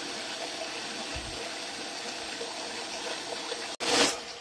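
Small electric mini chopper running, its blade grinding roasted bread crumbs into fine crumbs with a steady hiss. Near the end it breaks off suddenly, then comes a brief louder burst that fades away.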